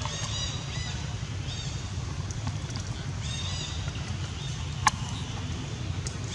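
A few short, high-pitched chirping animal calls, in quick clusters, over a steady low rumble. A single sharp click comes about five seconds in.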